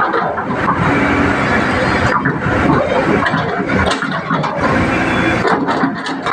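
Kobelco hydraulic excavator's diesel engine running.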